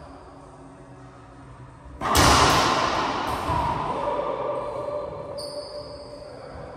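A single loud bang about two seconds in, echoing in an enclosed racquetball court and ringing for a few seconds as it dies away.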